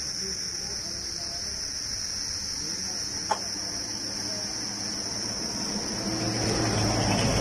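Steady high-pitched insect chorus running on without a break, with faint voices in the background. There is one sharp click about three seconds in, and the background grows louder with a low hum near the end.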